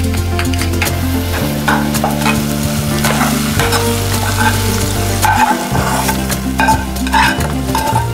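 A metal spoon stirring and scraping through mashed potato and herb filling in a ceramic bowl, then scraping fried onion mixture out of a pan into it, over background music with a steady bass line.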